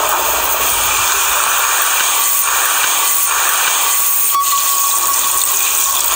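A steady, loud rushing hiss with a faint thin whine in it.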